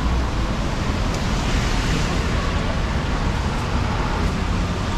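Steady hiss of rain on a wet city street, with traffic noise underneath.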